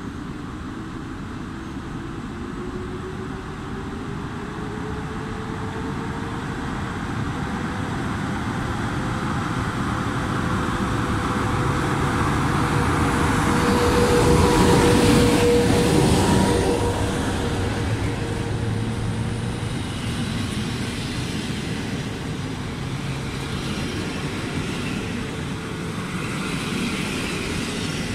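A train passing along the station tracks. Its rumble and rail noise build to a peak about halfway through and then ease off. A whine rises in pitch over the first few seconds and then holds steady.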